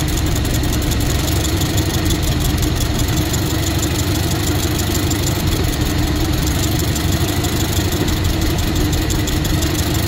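1914 Ford Model T Touring's four-cylinder flathead engine idling steadily on a set of freshly tested coils, which are firing properly.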